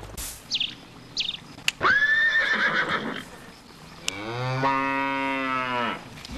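A horse whinnies about two seconds in, then a cow moos once, a long low call lasting nearly two seconds.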